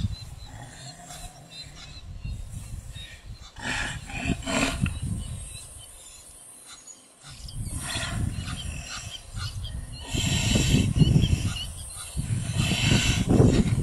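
Growling and grunting from a lioness clamped onto a wildebeest's muzzle and the struggling wildebeest, in several loud rough bursts with a lull about halfway through.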